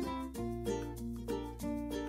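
Background music: a light plucked-string tune of quick notes over held bass notes.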